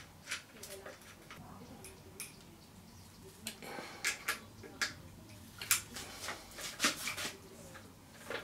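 Scattered sharp metallic clicks and taps of a hex key working the bolts on a bicycle handlebar stem, most of them in the second half.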